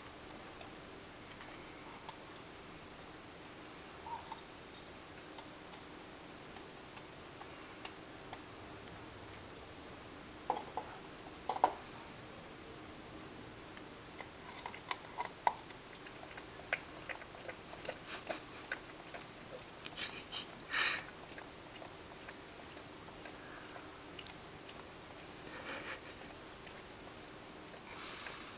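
Dog licking out a clear plastic yogurt parfait cup on carpet: irregular wet licks and light clicks and knocks of the cup, coming in scattered clusters, loudest a little over a third of the way in and about two-thirds in.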